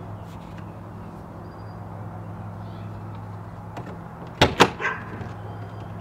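RV entry door pushed shut onto a newly fitted RV Lock keyless latch: two sharp knocks in quick succession about four and a half seconds in, then a lighter click as the latch catches. The door is being tested to make sure it closes securely, over a steady low hum.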